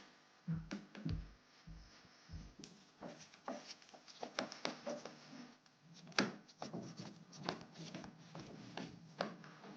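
Hands handling and fitting small hard parts: a few dull thumps in the first couple of seconds, then a run of irregular sharp clicks and light knocks.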